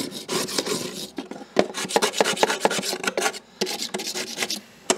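Gasket scraper scraping old insulation foam and adhesive residue off the inside of an outboard motor's hood, in quick repeated strokes with a short pause about three and a half seconds in.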